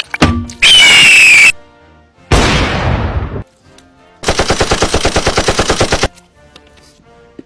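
A quick string of loud edited sound effects. First comes a noisy blast with a falling squeal, then a second burst that dies away over about a second, then nearly two seconds of rapid gunfire.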